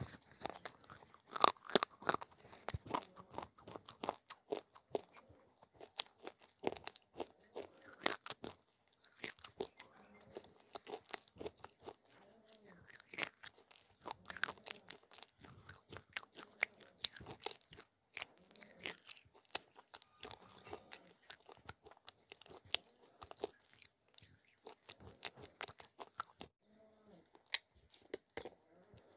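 Close-up chewing of baked clay (mitti) and slate pencil pieces: a quick, irregular run of hard, gritty crunches, easing off near the end.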